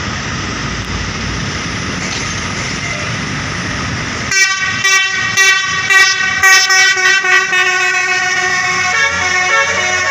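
Steady road traffic noise, then about four seconds in a bus's basuri telolet horn plays a tune: a run of short toots, then longer held notes that step between pitches.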